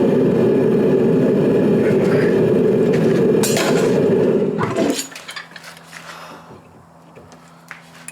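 A forge running with a steady, loud rush while a billet is brought to welding heat. It cuts off suddenly about five seconds in, followed by a few light metallic clinks.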